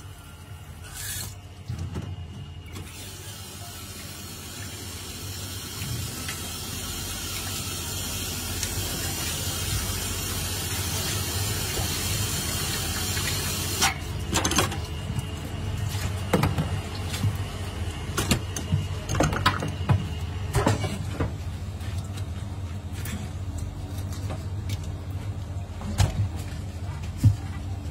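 Tap water running in a stream into a stainless steel sink over a whole fish being rinsed, cutting off sharply about halfway through. Scattered knocks and clatter follow as the wet fish is handled on the cutting board.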